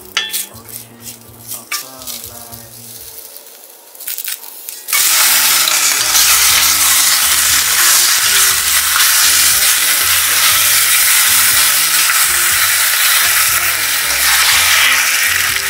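A few light knocks of a wooden spoon in a hot pot, then about five seconds in a sudden loud, steady sizzle as chicken pieces sear and are stirred in the dry, hot enameled cast-iron pot.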